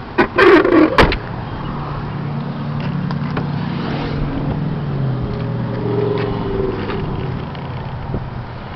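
A couple of sharp clunks in the first second, typical of the 2001 Chevy Tahoe's rear door being pushed shut, then a steady motor-vehicle engine hum that swells over a few seconds and eases off near the end.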